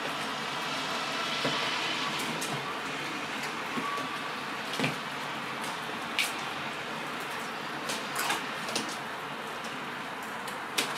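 Scattered sharp clicks and knocks from a red squirrel climbing and tugging at a hanging coconut-shell feeder, over a steady background hiss.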